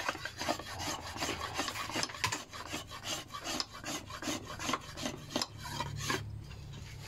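A small hand tool being drawn along the edge of a wooden mandau blade, shaving the wood in quick rasping strokes about three a second. The strokes stop about six seconds in.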